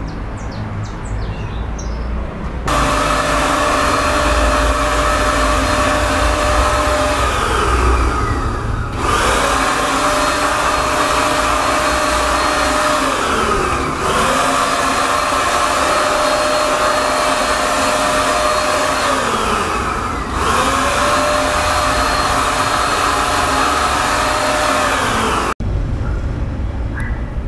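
Handheld electric paint spray gun running while spraying paint: a steady motor whine that starts a few seconds in, dips in pitch and picks up again three times, and cuts off suddenly near the end.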